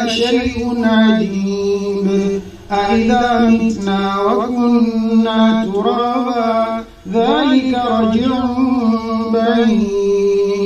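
An imam chanting Quranic recitation in a melodic, drawn-out style, with long held and ornamented notes in phrases broken by short pauses about two and a half seconds and seven seconds in.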